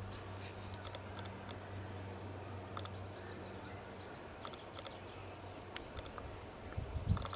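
Quiet outdoor ambience: a steady low hum, scattered faint high chirps of small birds, and a few low thumps near the end.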